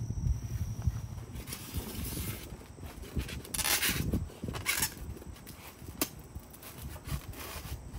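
Short bursts of scraping and rustling, with a sharp click near the end, as half-inch polystyrene foam lids are pressed into place on plastic Dutch buckets. A low rumble fades out about a second in.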